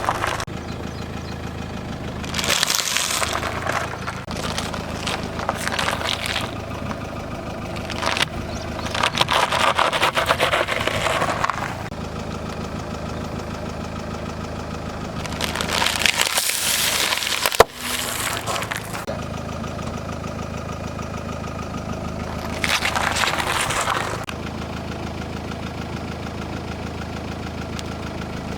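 A car tyre slowly rolling over and crushing objects, with about five bursts of crunching and cracking lasting a second or three each and one sharp snap a little past the middle, over the car's engine idling steadily.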